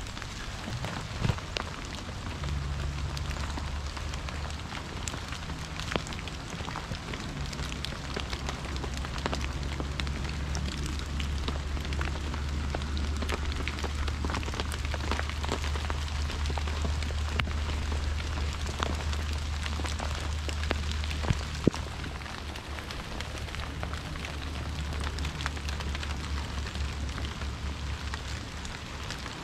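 Steady rain pattering on leaves and on the camera, with a scatter of small sharp ticks and a low rumble through most of the middle.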